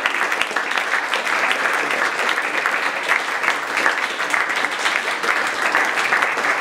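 Theatre audience applauding, with the cast on stage joining in: dense, steady clapping.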